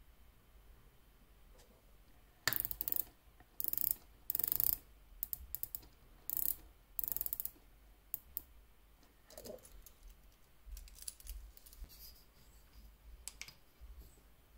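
Rotating dive bezel of a Pagani Design automatic watch being turned by hand, ratcheting with rapid clicks in several short bursts, followed by a few scattered clicks.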